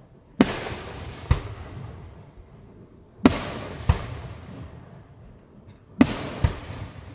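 Aerial fireworks shells exploding: three loud bangs about three seconds apart. Each is followed about half a second to a second later by a second sharp bang, then a long rumbling echo that fades away.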